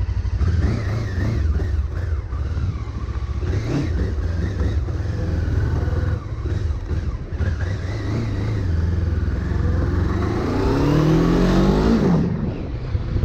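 Honda CB500 parallel-twin engine pulling away and running at low speed, then rising in pitch as the bike accelerates about ten seconds in, and dropping abruptly near the end as the revs fall away.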